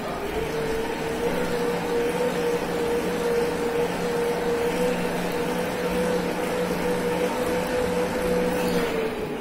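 Wattbike trainer's flywheel and air fan spinning as it is pedalled: a steady whirring hum with a held tone that rises as it spins up at the start and drops off near the end.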